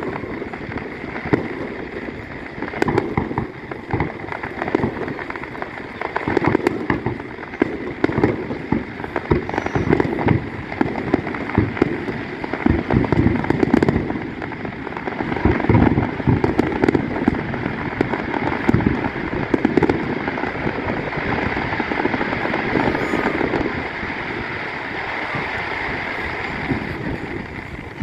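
Fireworks display: a continuous barrage of bangs and crackles, thinning out over the last several seconds into a steadier hiss.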